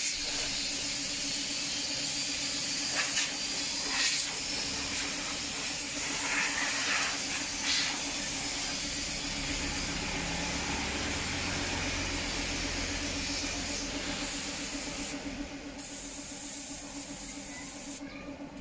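Gravity-feed compressed-air spray gun hissing steadily as it sprays finish onto wood, the hiss cutting out briefly twice near the end as the trigger is let go.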